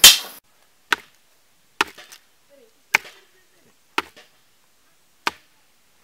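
A machete chopping into plant stalks: five sharp strikes about a second apart, with a louder blow at the very start and faint bird chirps between the strikes.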